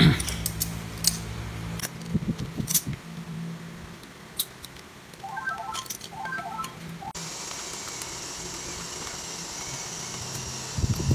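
Clicks, knocks and rattles of a cordless brushless impact wrench being handled and taken apart with a screwdriver, its metal hammer housing and plastic body knocking together. Most of the knocks come in the first three seconds.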